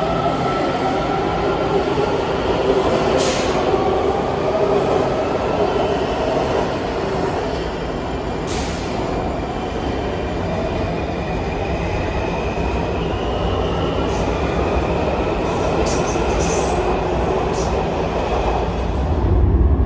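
WMATA Metrorail trains pulling out of an underground station, their traction motors whining in rising tones as they speed up over a steady rumble, with a few sharp wheel clicks over the rails.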